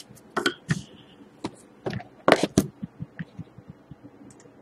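Cardboard trading-card boxes being handled, moved and opened: a series of knocks and scrapes through the first three seconds, loudest about two and a half seconds in, then a few light ticks.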